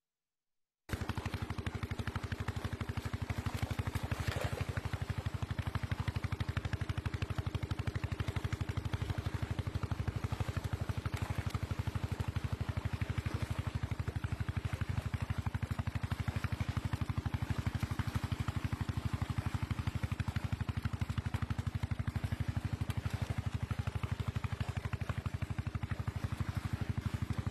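Small engine running steadily with a fast, even putter and a low hum, starting after about a second of silence.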